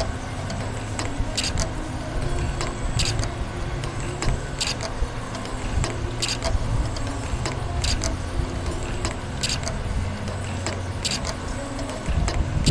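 Small spring coiling machine for wire up to 0.3 mm running: a steady mechanical hum with a short, sharp high click about every one and a half seconds as each finished spring is cut off.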